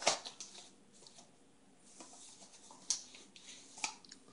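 Faint handling noise of a phone held close to the microphone: a few sharp clicks and small scratchy rustles, with the louder clicks just after the start, about 3 seconds in and near the end.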